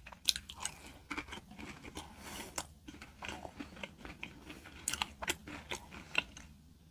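A person chewing food close to the microphone: a run of small mouth clicks and crunches that thins out near the end.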